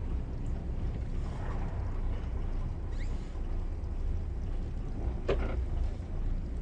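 Twin diesel engines of a Bayliner 4788 motor yacht running at low maneuvering speed, a steady low rumble. A brief higher-pitched squeak or call cuts in about five seconds in.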